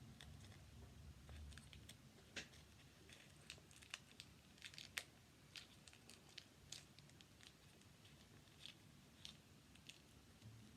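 Faint handling sounds of sticky tape and cardboard: scattered small clicks and crinkles as a piece of tape is pressed onto the inside of a cardboard fidget toy.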